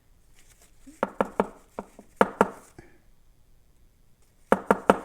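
Small metal lock parts tapping and clicking sharply on a hard surface, in two quick clusters of short ringing knocks: about five strikes a second or so in, and three more near the end.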